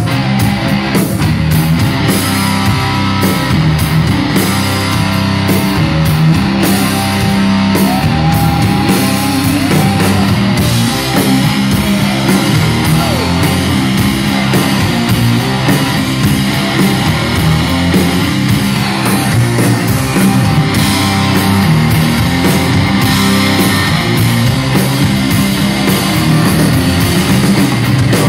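Rock band playing live and loud: electric guitars, keyboards and a drum kit together.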